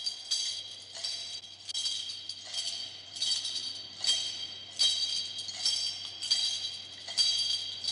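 Jingling metal percussion in the film's soundtrack, shaken in a steady rhythm about once every three-quarters of a second. Each shake rings with several high bell-like tones.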